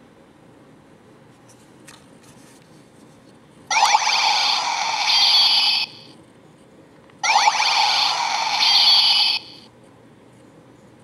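Kamen Rider Ryuki V-Buckle toy belt playing two electronic sound effects through its small speaker, each about two seconds long with a short gap between, after a few faint clicks of its mechanism.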